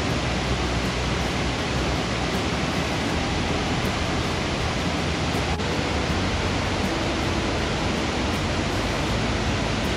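Burney Falls, a 129-foot spring-fed waterfall, plunging into its pool: a steady, even rush of falling water.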